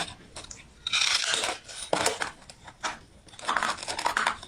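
Crunchy ice being bitten and chewed close to the microphone: a dense crunch about a second in, a couple of sharp cracks, then a run of crackling chews near the end.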